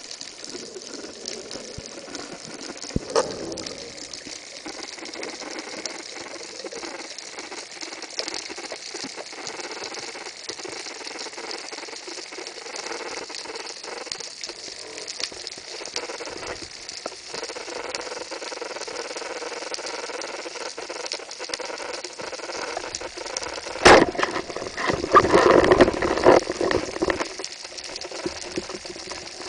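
Underwater, a steady crackling hiss runs throughout. About 24 seconds in, a band-powered speargun fires with one sharp, loud clack, followed by a couple of seconds of rattling and scraping commotion.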